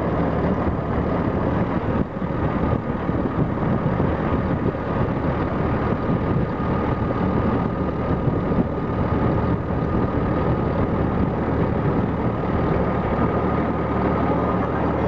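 Nordberg jaw crusher plant running steadily at constant speed: a continuous low machinery hum with a thin steady whine above it, and a brief dip in level about two seconds in.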